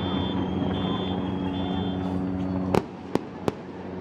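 Fireworks going off: three sharp bangs in quick succession about three seconds in, over a steady low droning hum with intermittent high tones.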